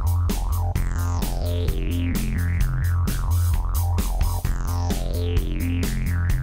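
Electronic background music with a steady beat, a deep bass line and gliding synthesizer lines.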